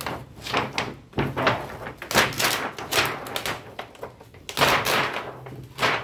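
A thin plastic reflector sheet being peeled back off an LED TV's metal backlight tray, crackling and flexing with a run of sharp knocks, the loudest about two seconds in and again near five seconds.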